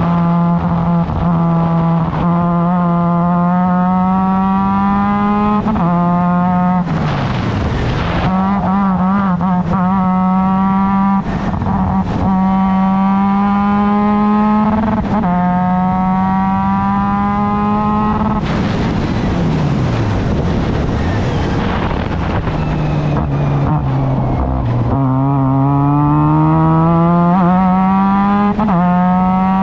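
A Formula Mazda race car's rotary engine at racing speed, pulling up through the gears. The pitch climbs steadily in each gear and drops at every upshift. Twice the revs fall sharply, as when braking and downshifting for a corner, before the engine climbs again.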